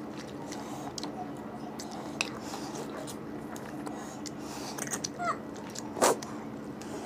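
Close-miked chewing and mouth sounds of people eating mutton curry and rice by hand and gnawing meat off mutton bones: small wet clicks and lip smacks over a steady low hum, with a brief voice sound a little after five seconds and one louder smack about six seconds in.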